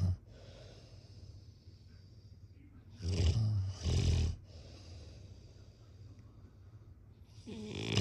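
A person snoring: a loud two-part snore about three seconds in, and another snore building near the end.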